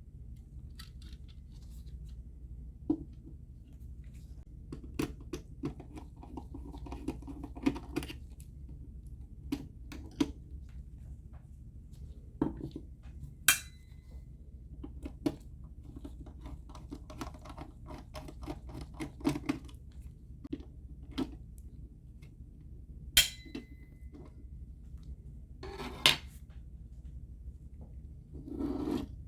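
Hands and tools working on a 20 amp GFCI outlet during disassembly: scattered clicks, taps and short scraping sounds of plastic and metal parts, with two sharp, louder clicks that ring briefly. A low steady hum runs underneath.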